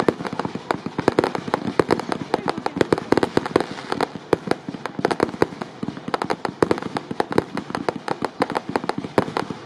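Fireworks display at full barrage: aerial shells bursting in a rapid, continuous run of sharp bangs and cracks, several a second, without a pause.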